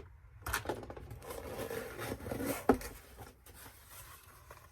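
Tea subscription box being opened by hand: rustling and tearing of packaging, with one sharp knock a little under three seconds in, the loudest sound.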